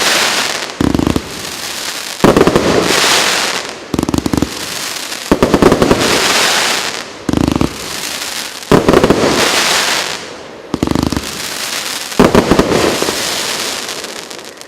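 Firework battery (cake) GP508 "Strength" firing shot after shot, about every three seconds. Each shot is a dull launch thump followed about a second later by a loud burst with a long crackling hiss. The last crackle fades out near the end.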